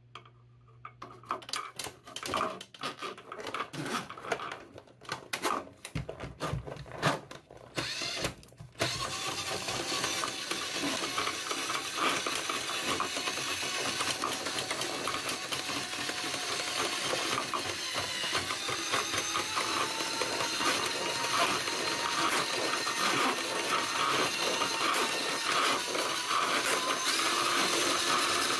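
A Ryobi drain snake's 1/4-inch cable is fed by hand into a PVC condensate drain line, with scattered clicks and scraping. About nine seconds in, the snake's motor starts and runs without a break, spinning the cable in the pipe and growing gradually louder. This is a line already cleared of a lint-and-dust clog being cleaned out further.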